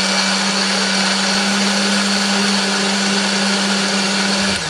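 Countertop electric blender running at a steady speed with a constant motor hum, grinding chillies, shallots, garlic and candlenuts with a little water into a wet spice paste. It switches off near the end and winds down.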